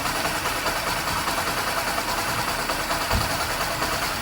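Honda SP 125 BS6 single-cylinder engine idling steadily, with an even ripple and a brief low thump about three seconds in. It has freshly repaired valve gear: a new camshaft and rocker arms, a new timing chain, and tappets set to 0.08 mm inlet and 0.12 mm exhaust. It runs like a new engine, which is the sign that the earlier tik-tik tappet noise has been cured.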